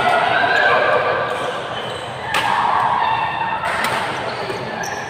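People talking, with two sharp knocks or bounces, about two and a half and three and a half seconds in.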